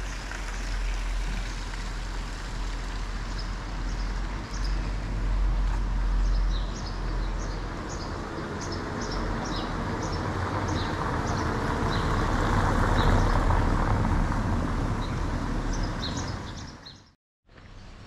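Rainy outdoor ambience: a steady hiss of rain and wet traffic over a low rumble, swelling to its loudest a little past the middle, with short high bird chirps throughout. It cuts off abruptly near the end.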